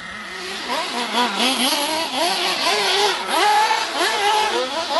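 Small engine of a radio-controlled car revving up and down again and again as it is driven, its pitch rising and falling several times a second.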